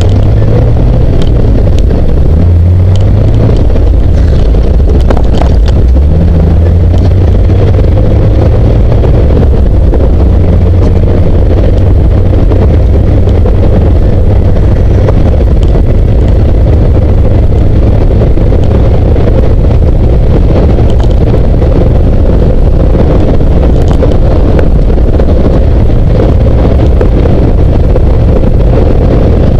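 Classic Jeep CJ7 engine and drivetrain running at a steady low drone while driving a dirt road, with wind buffeting the microphone.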